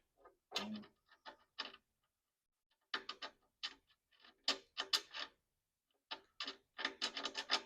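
Hand ratchet wrench clicking in short runs, working a metric bolt during the winch mounting, with pauses between strokes.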